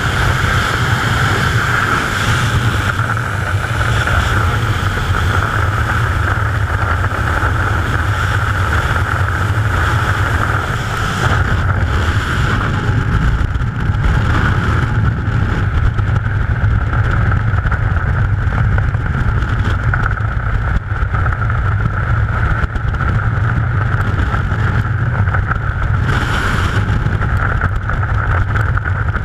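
Loud, steady rush of freefall wind blasting across a helmet-mounted camera's microphone.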